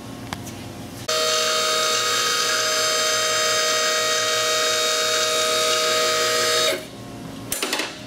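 A loud, steady machine whine made of several held tones, starting suddenly about a second in and cutting off abruptly some five and a half seconds later.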